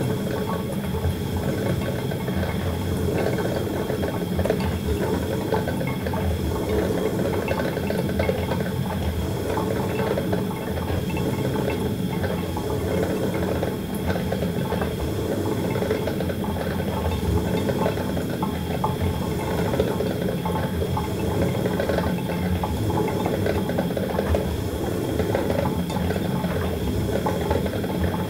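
Coffee maker brewing: heated water gurgling and bubbling steadily, with a faint high steady tone underneath.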